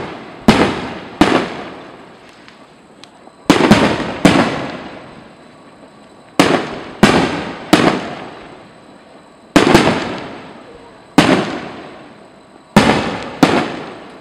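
Aerial firework shells bursting overhead: about a dozen sharp bangs, some in quick pairs and clusters, each trailing off in a rolling echo.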